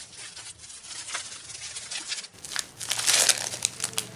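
Plastic packaging crinkling as it is handled and unwrapped: a faint rustle at first, then louder, sharp crackles from a little past halfway.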